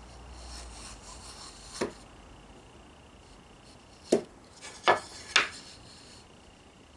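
Marking gauge scraping lightly along a wooden board, with four sharp wooden knocks as the gauge and board are set against the bench: one about two seconds in, then three in quick succession after about four seconds.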